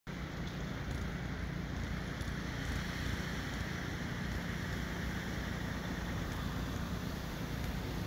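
Steady low rumble of distant diesel freight locomotives approaching, mixed with wind noise on the microphone; no horn sounds yet.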